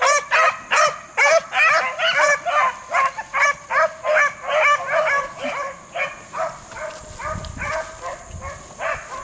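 Pack of beagles baying on a rabbit trail: a quick run of high yelping calls from several dogs, about two or three a second, fading as the pack moves off into the brush. A low brushing rumble comes in near the end.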